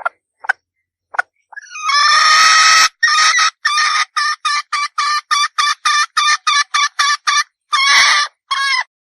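Red junglefowl hen calling: a few short notes, then one long loud call, then a quick run of short clucks about three a second, ending with a longer call.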